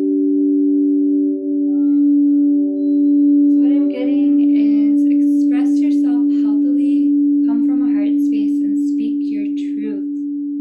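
Two frosted crystal singing bowls played with mallets, ringing together as two steady, sustained tones, a lower one and a higher one, that hold throughout.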